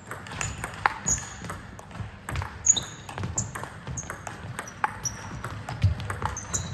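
Table tennis rally: the plastic ball clicking off the rubber-faced paddles and bouncing on the table in quick succession.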